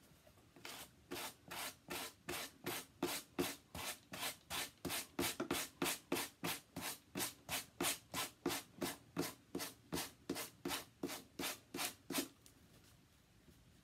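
A small hand brush dragged repeatedly through unravelled paracord fibres to brush them out into a fluffy tuft: a quick, even run of scratchy strokes, about three a second, stopping about 12 seconds in.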